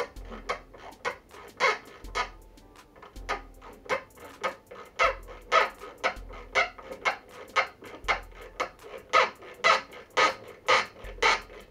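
A screw being driven into wood with a hand screwdriver, squeaking with each twist: short squeaks at about two a second, loudest near the end.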